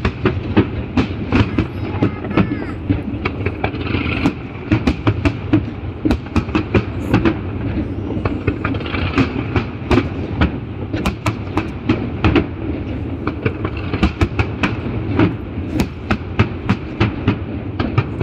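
Fireworks going off in a dense, irregular run of sharp pops and crackles, several a second, over a steady low rumble.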